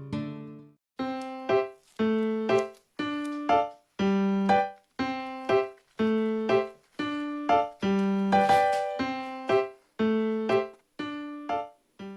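Background piano music: a steady run of struck notes and chords, about two a second, each fading away before the next.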